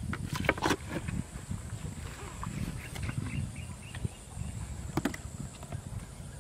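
Hands squelching and splashing in shallow muddy water among grass, with a few sharp clicks about half a second in and again near five seconds.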